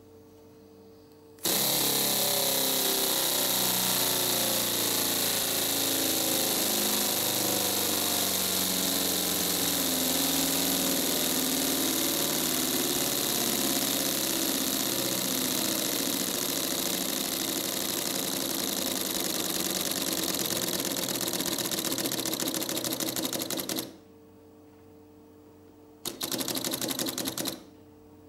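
LEGO Technic pneumatic V4 engine running on compressed air: a loud hiss of exhausting air with rapid valve and piston clatter. It starts suddenly, runs for about twenty seconds and cuts off. A second short run of about a second and a half comes near the end.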